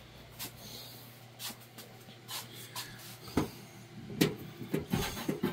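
Scattered light clicks and knocks of a line and parts being handled in a truck's engine bay, coming more often near the end, over a faint steady low hum.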